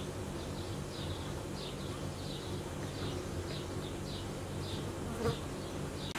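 A flying insect buzzing steadily close by, with short high chirps repeating about twice a second over it.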